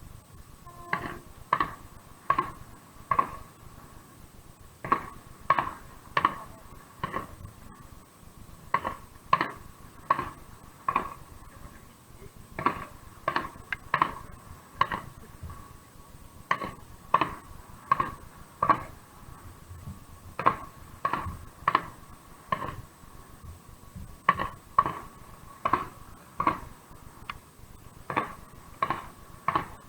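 A long run of short, sharp clicks, about one every three-quarters of a second with a few brief pauses, each with a short ring, over a faint steady tone.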